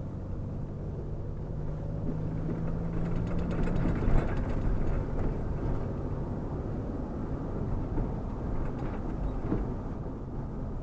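Truck engine running while driving, with road noise: a steady low hum for the first few seconds, then louder, rougher road noise with a few short rattles.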